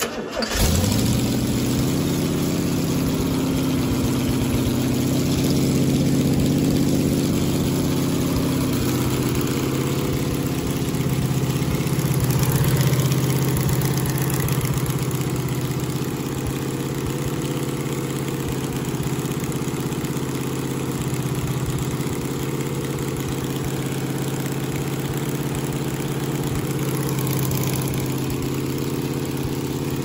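A 396 big-block Chevy V8 on a run stand, freshly fitted with a new camshaft and lifters, catches almost at once about half a second in and then runs steadily.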